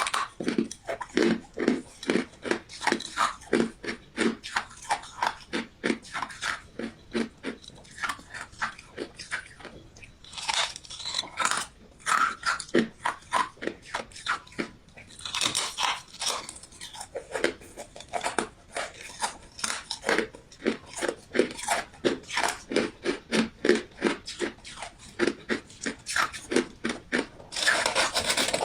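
Ice being bitten and chewed close to the microphone: a continuous run of crunches, a few a second, with bursts of louder, denser crunching about ten seconds in, about fifteen seconds in and near the end.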